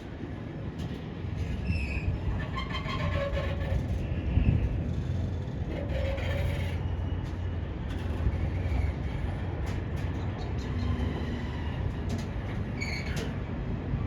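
Intermodal freight train of container wagons rolling past on the rails, a steady low rumble.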